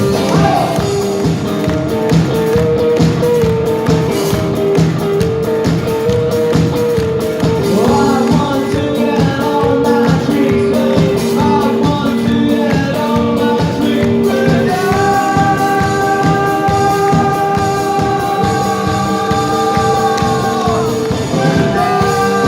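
A band playing a song: singing over instruments and an even beat. A long held note sounds for about six seconds, two-thirds of the way in.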